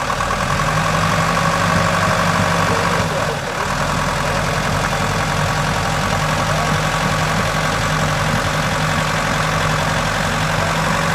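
GAZ-66 truck engine running steadily while the truck sits stuck in mud, picking up slightly about half a second in.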